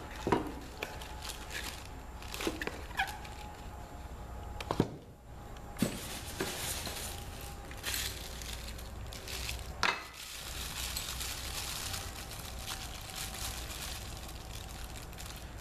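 Drill press parts and packing being handled while unboxing: scattered knocks and clunks, a few sharper clicks, over a faint steady hiss.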